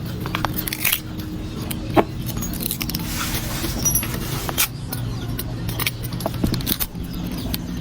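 Wooden brush being taken apart by hand: scattered clicks, knocks and light rattling, with a sharper knock about two seconds in, over a steady low hum.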